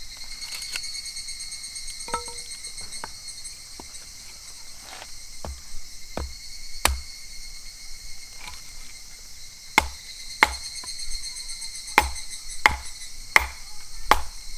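Hatchet splitting firewood on a wooden chopping block: a series of sharp wooden knocks, a few spaced out at first, then about one every two-thirds of a second near the end. A steady high-pitched drone runs under it.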